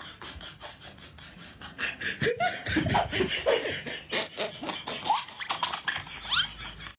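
Laughter in quick pulses, with short rising and falling tones mixed in, cut off abruptly at the end.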